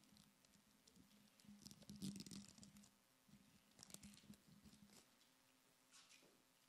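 Faint crinkling and crackling of a small plastic communion pack being peeled open and handled close to a microphone, in a few short flurries.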